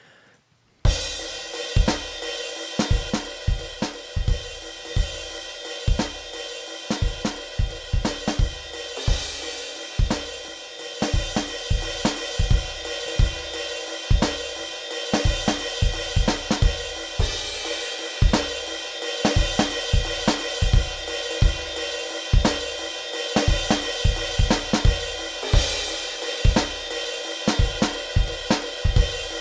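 A soloed drum kit track starts about a second in and plays a steady beat: kick drum hits under a constant wash of hi-hat and cymbals, heard through the master bus effects chain.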